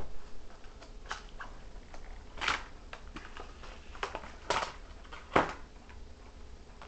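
Clear plastic blister packs being handled on a table: a few short plastic crackles and clicks, the sharpest about five seconds in.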